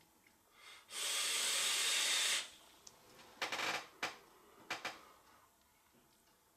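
A long draw on a dripping atomizer vape: a steady hiss of air and vapour through the atomizer for about a second and a half. A few seconds in come two short, breathy exhales of vapour.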